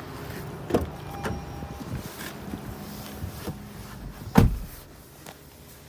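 Toyota RAV4 Prime front door being opened, with clicks, knocks and rustling as someone climbs into the front seat, then the door shutting with a loud thud about four and a half seconds in.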